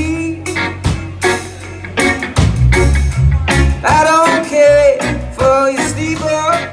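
Reggae band playing live: a steady bass line and regular drum hits under a melodic lead line with bending notes.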